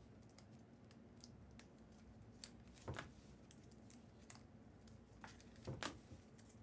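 Faint handling of trading cards at a table: light ticks and brushing as the cards are shuffled through, with two louder knocks, about three seconds in and near six seconds.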